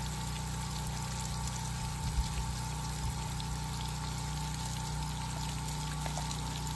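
Water spraying from a hose onto a pig and into a muddy wallow, a steady splashing hiss, with a steady low hum underneath.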